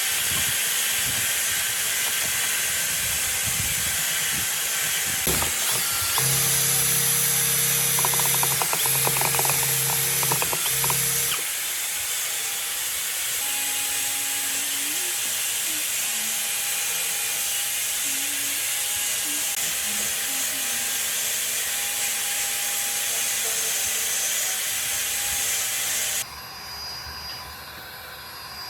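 A power tool running steadily with a loud hiss, with a brief humming tone partway through; it stops suddenly near the end.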